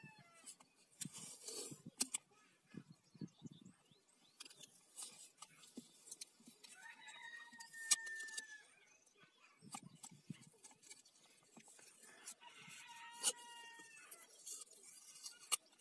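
Paper masking tape being pulled off its roll and wrapped around a spirit level and hammer drill, with rustling, short hissing pulls and small clicks. A bird calls twice in the background, about seven seconds in and again near the end.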